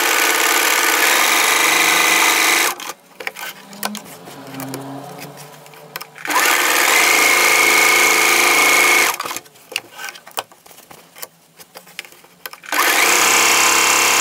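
Electric domestic sewing machine stitching with a twin needle in three runs of about two to three seconds each, with short pauses between them. It is sewing decorative raised tuck rows with the thread tension set to maximum.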